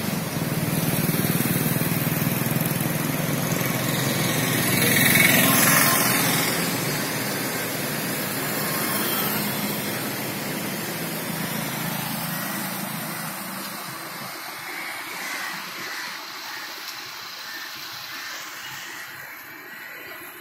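Steady rushing roar of the flooded Cauvery pouring through a river barrage. It swells loudest about five seconds in, then grows gradually fainter and thinner in the second half.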